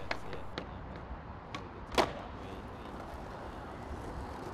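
Skateboard on concrete: a few light clicks and knocks, then one sharp, loud clack about two seconds in, over a steady low rumble.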